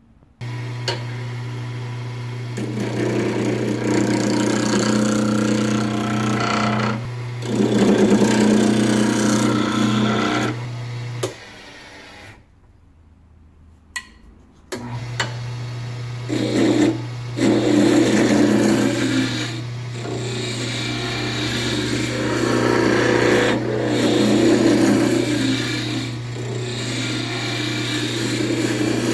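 Jet wood lathe motor running with a steady hum while a hand gouge cuts a spinning wooden handle blank, the scraping cutting noise coming and going in bouts. The lathe starts just after the beginning, stops about eleven seconds in, and is started again a few seconds later.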